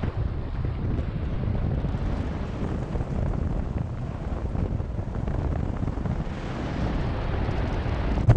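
Steady road and wind noise inside a moving truck's cabin, heaviest in the low rumble.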